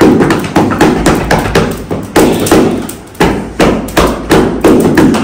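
A fast, even run of thumping knocks, close to three a second.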